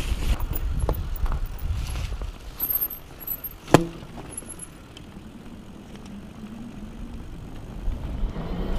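Fat e-bike riding on a snowy trail: low wind rumble on the helmet-camera microphone, a few short faint high squeaks, then one sharp knock from the bike a little under four seconds in. The ride goes quieter after the knock before the rumble builds again near the end.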